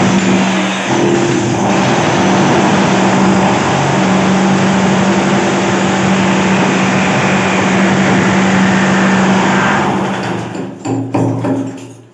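An electric power tool runs continuously as it breaks tiles and plaster off a bathroom wall, with a steady hum under dense chipping noise. It stops about ten seconds in, and a few separate knocks follow.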